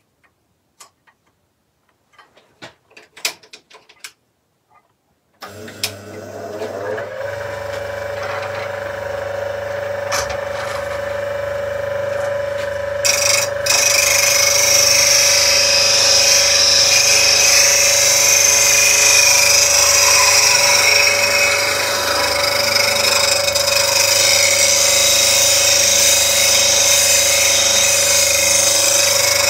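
A few light clicks of the sharpening jig being handled, then the Axminster Trade slow-running bench grinder switches on about five seconds in, its hum rising and settling into a steady tone as the wheel comes up to speed. From about halfway a bowl gouge held in the jig is ground against the wheel, adding a steady hiss of steel on the stone as the Ellsworth grind is shaped.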